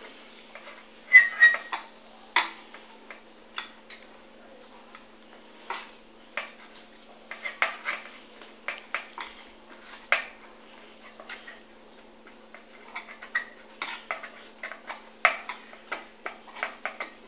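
Hand kneading a stiff rice-flour and jaggery dough in a stainless steel bowl: irregular clinks and knocks of hand and dough against the steel, over a faint steady hum.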